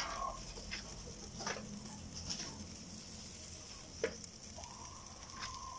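Pork and pork skin sizzling on a grill grate over an open fire, with a few sharp clicks of metal tongs against the grate. A faint drawn-out tone starts near the end.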